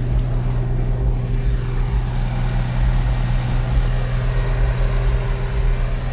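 A steady low mechanical drone, with a thin steady high whine above it.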